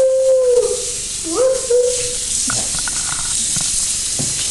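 A small long-haired dog howling in the bath: one long howl ends about half a second in, then a second howl rises and holds for about a second. Under it is the steady hiss of running bath water, with a few knocks and splashes after. The howls come from a shivering dog that dislikes being bathed.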